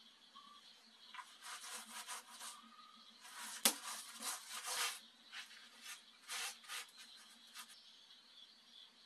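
Irregular bursts of rough scraping and rubbing, with one sharp knock about a third of the way in: a person clambering about and handling the stone slabs and clay of a traditional ondol floor.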